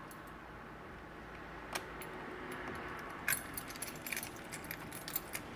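Small metal clinks and taps as an Allen key and steel die parts are handled on a pneumatic snap-attaching machine during a die change. The clinks are scattered and irregular, the clearest about two seconds and three seconds in, with a quick run of lighter ticks near the end.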